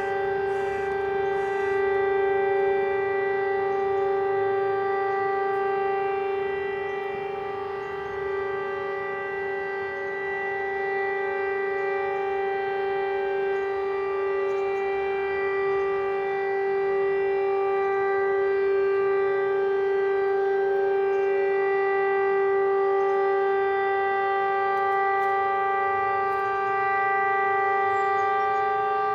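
Civil-defence warning siren sounding one long steady tone, its pitch held level. It is the 'Attention everyone!' public warning signal, sounded here as a drill.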